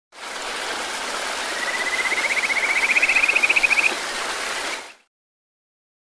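Running water rushing steadily, with a rapid pulsed trill rising slightly in pitch over it from about one and a half to four seconds in; all of it cuts off sharply about five seconds in.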